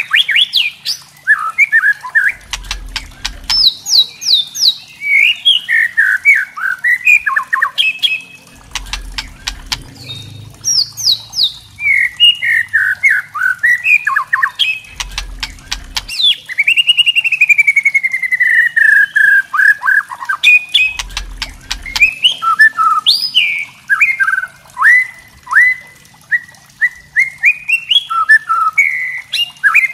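White-rumped shama singing loud, varied whistled phrases broken by fast, dry crackling rattles (the 'kretekan' call). A little past halfway comes one long whistle gliding downward.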